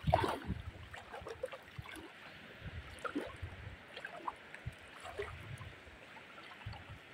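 Shallow seawater trickling and gurgling around a person wading through it, with faint scattered drips and small sloshes.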